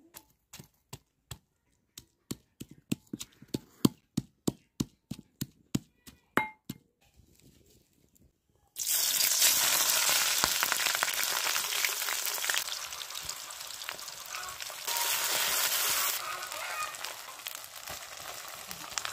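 Metal pestle pounding green chillies and garlic in a metal mortar bowl: a fast run of sharp strikes, about three a second, some of them ringing. After a short pause, hot oil in a wok starts sizzling suddenly and keeps frying steadily, louder for a stretch in the middle.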